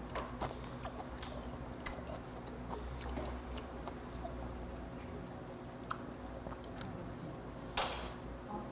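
A person chewing a mouthful of raw horse meat with kimchi, with scattered small clicks of metal chopsticks against a plate, the sharpest a little before the end.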